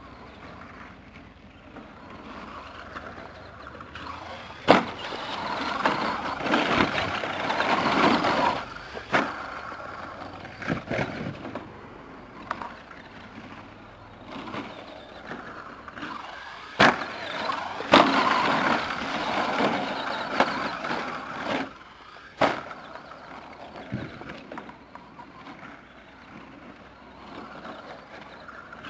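Radio-controlled SC10 short course truck running on a dirt track, its Kyosho Le Mans 240ST brushed electric motor and tyres on loose dirt swelling twice as it passes close. Several sharp knocks cut through, typical of the truck landing jumps and hitting the ground.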